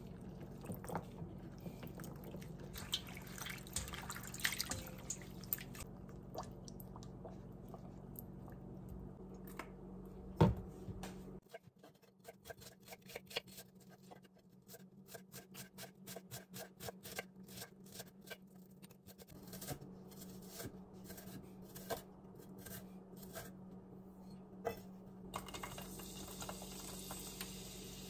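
Quiet kitchen food-prep sounds: dried lotus seeds being handled in a bowl, with a low steady hum behind. Then, after a sharp click about ten seconds in, a run of light, irregular taps and clicks.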